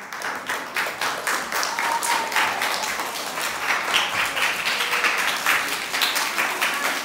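An audience of young children applauding, many hands clapping quickly and unevenly without a break.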